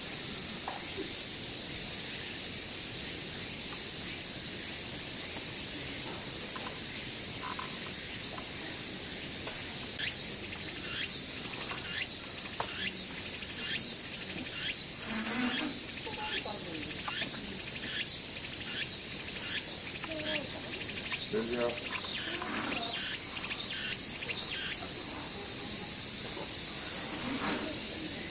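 Steady, high-pitched drone of cicadas calling in chorus.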